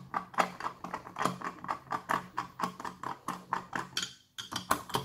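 A hand screwdriver tightening the screws in a dome CCTV camera's base, giving a regular run of short clicks about three a second, with a brief pause about four seconds in.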